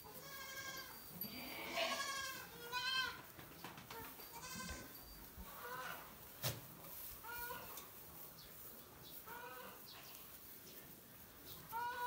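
Goats bleating, about eight wavering calls from several animals in turn, the loudest in the first three seconds. A single sharp knock comes about six and a half seconds in.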